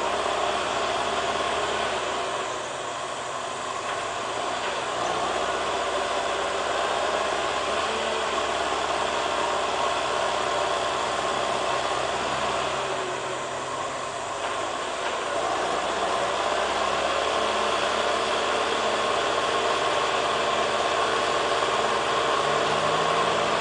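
Heavy diesel engine idling steadily, with a slight dip in level a couple of seconds in and again around the middle.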